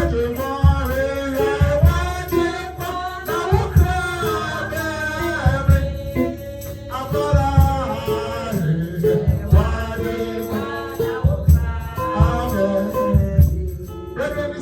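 Gospel singing with instruments: voices carrying a melody over a steady beat of drums and bass, with a shaker or tambourine.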